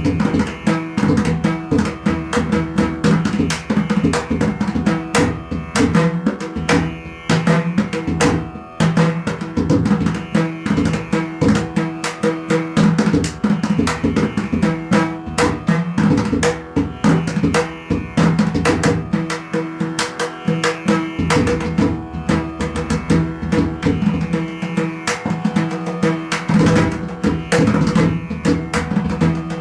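Indian music with fast, dense drumming over a steady drone.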